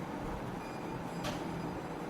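Steady low background hum with one brief scrape a little over a second in, from handling the sink's parts during assembly.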